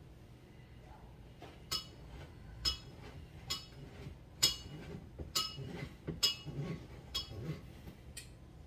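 Glass or metal clinking about once a second, around eight sharp strikes that each ring briefly, the loudest about halfway through, with duller knocks of handling in between.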